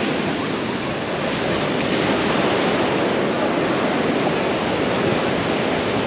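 Sea surf breaking and washing up a sandy beach: a steady rush of foaming water.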